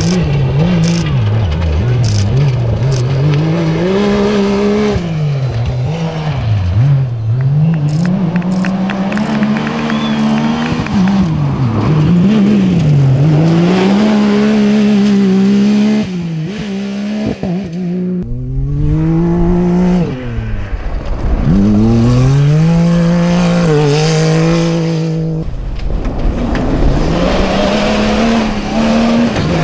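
A Yamaha side-by-side and other cross-country rally cars at full throttle on dirt tracks. The engines rise in pitch, drop at each gear change and rise again, over and over, across several edited passes.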